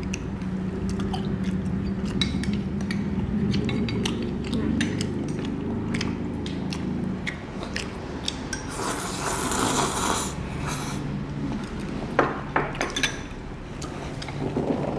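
Eating sounds: chopsticks and spoons clicking against ceramic bowls and clay pots, chewing, and one long slurp of spicy noodles about nine seconds in, lasting about a second and a half. A low steady hum runs underneath.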